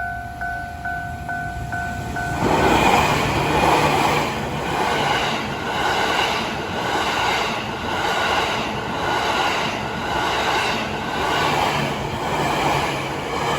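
Level-crossing warning bell dinging two to three times a second, then about two seconds in a Tokaido Line train passes through the crossing at speed, loud and pulsing evenly as car after car goes by, over the bell.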